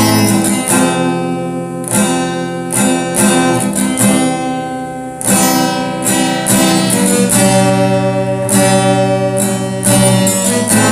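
Music: strummed acoustic guitar chords in an instrumental break of a love song, with no singing.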